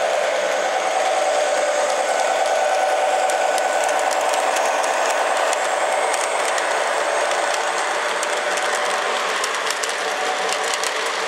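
Model diesel switcher locomotive and its freight cars running on the track: a steady motor and gear whir, with rapid wheel clicks over the rail joints that grow denser in the second half.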